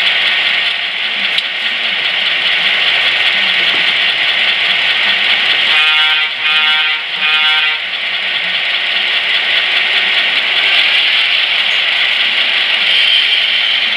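Sound decoder of an HO-scale EMD F7A model diesel locomotive playing its engine-idle sound through its small speaker, with a steady hiss over a wavering low rumble. About six seconds in come three short pitched toots in quick succession.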